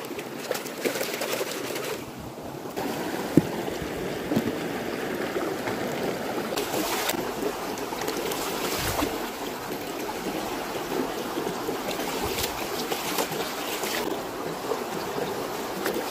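Shallow creek water rushing and babbling over rocks, with splashing as hands rinse a small fish in the current. A single sharp click stands out about three seconds in.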